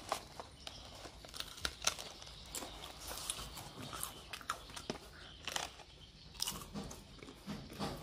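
Crepe-making at a stall: irregular light clicks, crunches and crinkling from utensils and toppings being handled.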